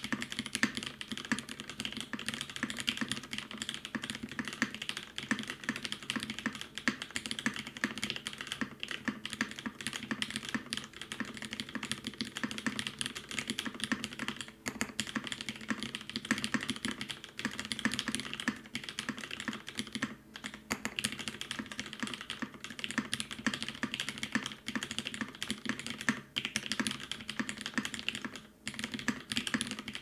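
Continuous typing on a custom Quantrik QXP mechanical keyboard fitted with lubed vintage Cherry MX Black linear switches, a polypropylene plate and GMK keycaps. The keystrokes run densely, with a few short pauses.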